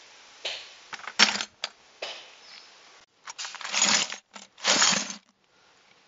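Shards of broken green wine-bottle glass shaken out of a cloth, clinking and clattering into a plastic bucket in several quick bursts, stopping abruptly about five seconds in.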